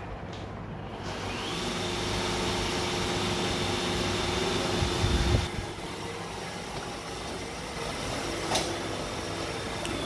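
iRobot Roomba i7 robot vacuum running, with a steady motor and brush hum. A high whine comes in about a second in and then holds steady. A brief low thump comes about five seconds in, and a single click near the end.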